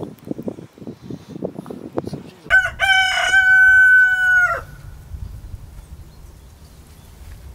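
A rooster crowing once, about two and a half seconds in: a couple of short opening notes, then one long held call of about two seconds that drops away at the end.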